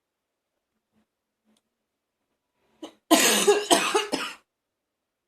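A woman coughing harshly and gagging: after a pause of nearly three seconds, a short catch of breath, then a loud burst of about three rough, strained coughs, as if close to throwing up.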